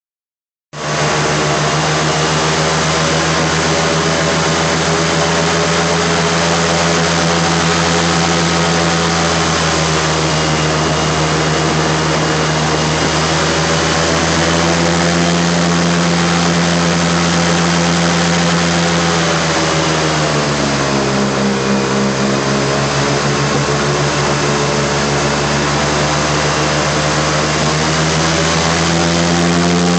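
Airboat engine and air propeller running loudly and steadily. About two-thirds of the way through, the pitch drops as the throttle eases, then climbs again near the end.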